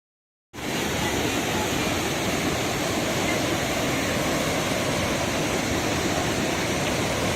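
Waterfall rushing: a steady, even wash of falling water that cuts in suddenly about half a second in after silence.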